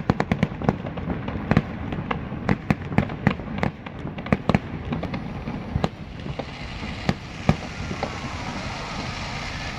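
Aerial fireworks going off: a rapid run of sharp bangs and crackles for about the first five seconds, thinning to a few scattered bangs, the last about seven and a half seconds in, then a steady rumbling background.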